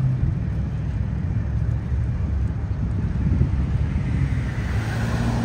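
Steady low rumble of passing vehicles at a street crossing. A low hum cuts out just after the start and comes back near the end.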